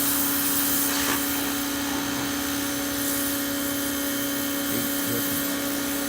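A motor running steadily, a constant droning hum with a high hiss.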